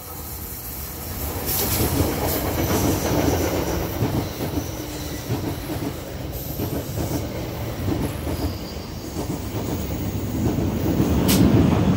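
NJ Transit commuter train running into the station and passing close along the platform: steady rumble of the passenger cars' wheels on the rails, with faint high wheel squeal. It grows louder after the first second and is loudest near the end, with a sharp click shortly before the end.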